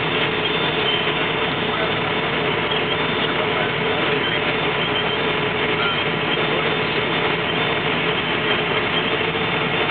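Steady engine and road noise inside a transport truck's cab at highway speed, an even drone with no change throughout.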